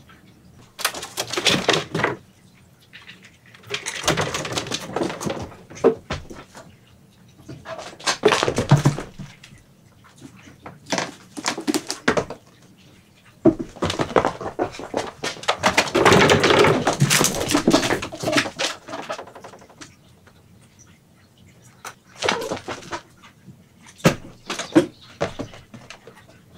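Cats moving about and playing, heard as repeated bursts of rustling, scratching and light clicking knocks, with quiet gaps between them; the longest burst comes about halfway through.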